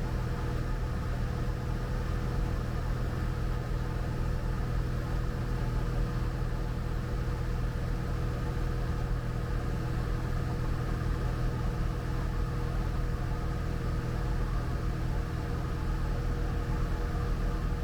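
Single-engine Cessna 172 Skyhawk's piston engine and propeller droning steadily in flight, heard from inside the cabin: an even low hum with several steady tones running through it.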